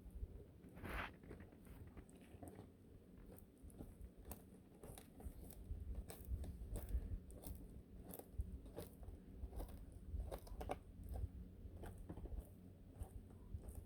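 Iguana biting and chewing a collard green leaf: a run of small, irregular crunches as the leaf is torn and eaten.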